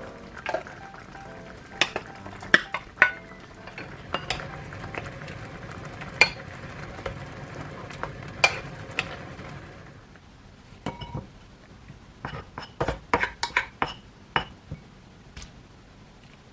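Kitchen utensils clinking and knocking against dishes and cookware in irregular single strikes, with a quick cluster of clicks near the end.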